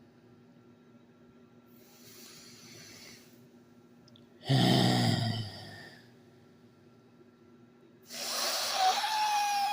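A person huffing and puffing: a faint breath about two seconds in, a loud groaning sigh with falling pitch at about four and a half seconds, and a long hissing exhale with a slight whistle near the end.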